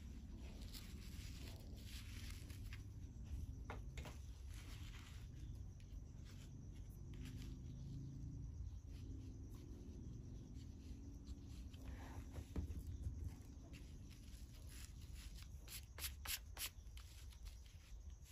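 Faint rubbing and scratching of jute twine being pressed onto paper by hand, with a few scattered sharp clicks, the most around two-thirds of the way through, over a low steady hum.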